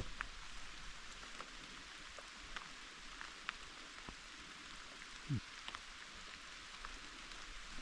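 Light rain falling, with scattered individual drops ticking. A single soft low thump comes about five seconds in.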